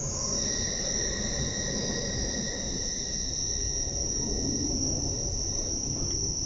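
DB Class 430 S-Bahn electric train running, heard inside the passenger car: a steady high-pitched whine from its electric drive over a low rumble. A second, lower whine fades out about five seconds in.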